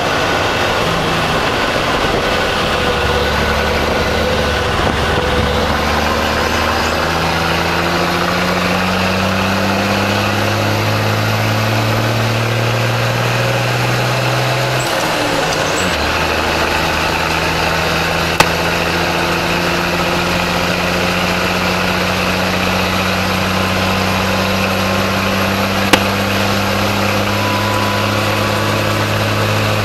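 An M109A3 self-propelled howitzer's Detroit Diesel 8V71T two-stroke V8 diesel pulls hard under acceleration, heard from the driver's seat. Its pitch climbs steadily, drops at an upshift about halfway through, then climbs again more slowly in the next gear. Two sharp clicks stand out, one about two-thirds of the way in and one near the end.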